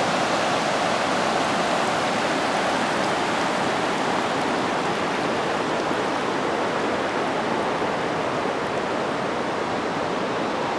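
River water rushing over rocks in a shallow riffle: a steady, even rushing that eases slightly toward the end.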